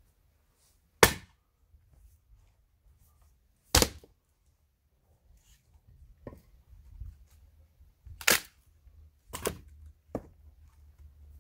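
A 60 cm, 1.4 kg Hults Bruk Swedish axe splitting firewood logs on a chopping block: four loud, sharp strikes spread through the stretch, two of them about a second apart near the end, with a couple of fainter knocks between them.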